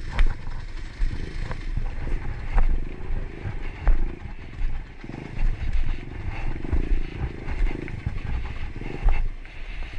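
Motorcycle engine running at low throttle, a faint steady hum under heavy low rumble and irregular knocks on the microphone.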